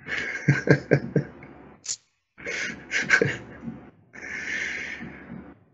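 Indistinct voices and vocal noises from people at a table, too unclear for any words to be made out, with a noisy, unpitched sound lasting over a second about four seconds in.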